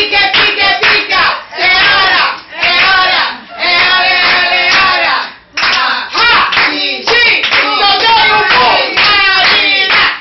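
A group of people singing a birthday song together and clapping their hands in time, with a brief break about five and a half seconds in.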